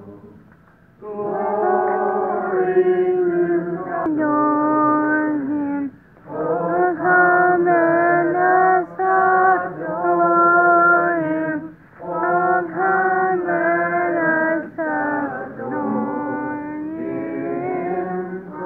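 Voices singing a Christmas carol, phrase by phrase, with short pauses between phrases.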